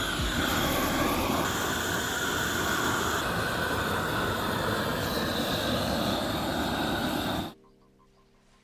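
Propane weed burner torches running full open, a steady rush of burning gas as they heat the brick-enclosed steel anvil. It cuts off suddenly about seven and a half seconds in, leaving near quiet with a faint hum.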